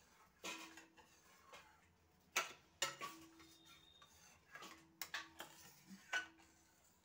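Steel spoon knocking and scraping against the side of a kadai while thick milk with chushi pieces is gently stirred: several sharp clinks, some leaving a brief low ring from the pan.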